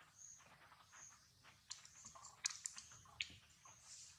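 Faint sharp clicks and crackles of a macaque chewing fruit, with three louder clicks in the second half. Short high chirps sound now and then in the background.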